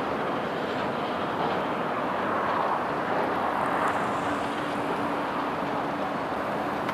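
Steady rushing noise of road traffic, with a low hum coming in about four and a half seconds in.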